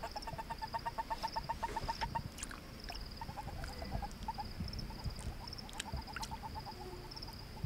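Male western toad calling: a rapid series of short chirps, about seven a second, in three bouts with the first the longest. This is a robust call that fends off a rival male's attempt at amplexus. A faint, high, steady pulsing runs underneath.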